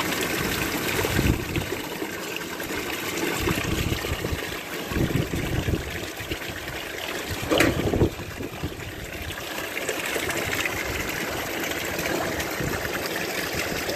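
Water from a roof sprinkler line running steadily over plastic and corrugated roof sheets, trickling and splashing, to cool the aviary. A few short bumps break in; the sharpest comes about eight seconds in.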